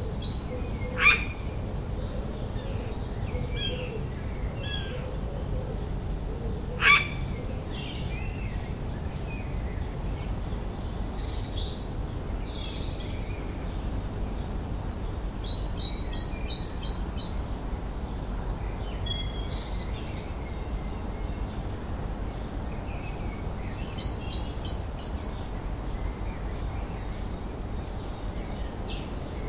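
Dawn chorus: several birds singing at once, including a rapid high trill that comes three times. Two sharp clicks about one and seven seconds in are the loudest sounds, over a steady low rumble.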